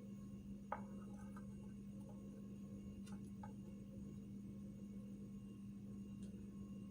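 A steady low hum with a few faint clicks: one about a second in, a pair around three seconds and one near the end.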